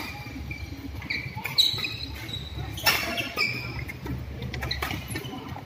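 Badminton shoes squeaking on the court mat during a doubles rally, with a few sharp racket-on-shuttlecock smacks, the loudest about one and a half and three seconds in.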